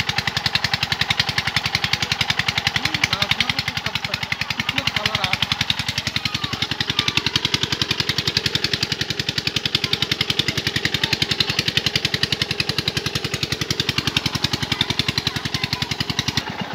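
A small engine running steadily with a rapid, even knocking beat.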